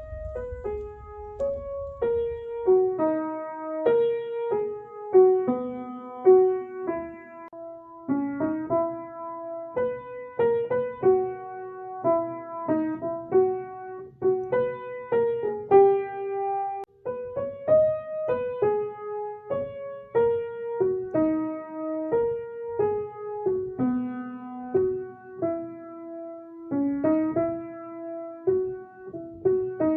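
Solo piano music: a melody of separate notes, about one or two a second, each fading after it is struck.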